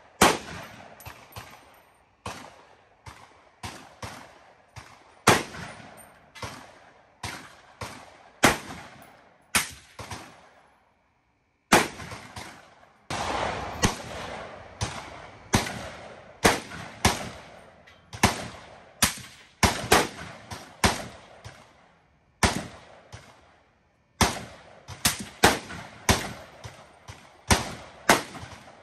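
Rapid string of rifle gunshots from the Ruger SFAR semi-automatic rifle and other guns on the firing line, about two shots a second, some louder than others, each with a short echo. A brief pause comes about ten seconds in.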